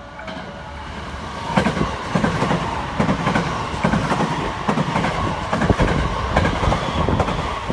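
JR West 289 series limited-express electric train passing along the platform, its wheels clacking rhythmically over the rail joints under a steady rumble. It gets much louder about a second and a half in as the cars come alongside.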